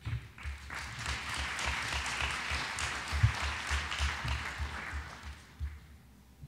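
Audience applauding, picking up quickly and dying away about five seconds in.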